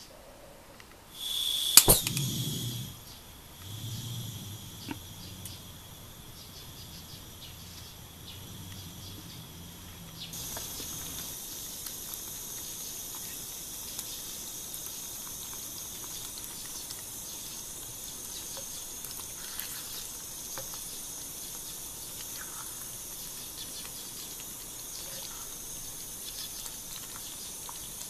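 Beef stew simmering in a 14 cm cast-iron cocotte over a burner, a steady hiss with faint bubbling that grows louder about ten seconds in. About two seconds in there is a sharp clack of metal tongs.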